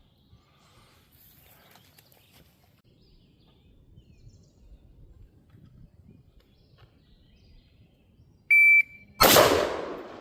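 Shot timer giving one short, steady beep, then about three-quarters of a second later a single loud gunshot that echoes as it fades.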